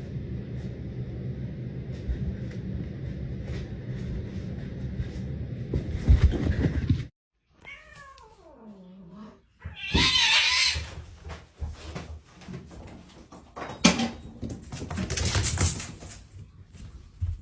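A cat meowing: one long, drawn-out meow that slides down in pitch, about eight seconds in. Before it comes a steady low rumble that cuts off suddenly; after it come a noisy burst and a few loud irregular sounds.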